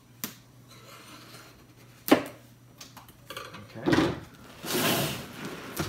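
A large cardboard box being handled by hand: a click, then a sharp knock about two seconds in, a bump near four seconds and a rustling scrape of cardboard near the end as the lid is worked loose.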